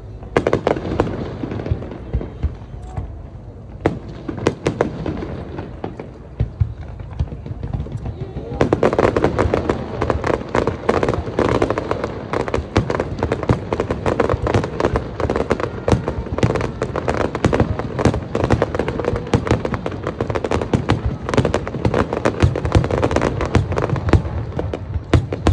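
Fireworks display: scattered bangs for the first several seconds, then from about eight and a half seconds in a dense, continuous barrage of rapid bangs and crackles.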